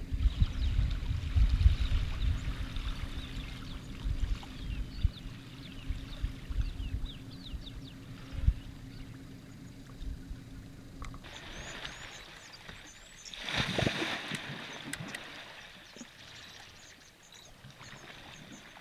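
African elephant bull wallowing in a muddy waterhole: water sloshing and splashing, with one louder splash about two-thirds of the way through. In the first half there is a low rumble and a steady low hum, which cut off abruptly, and faint bird chirps can be heard throughout.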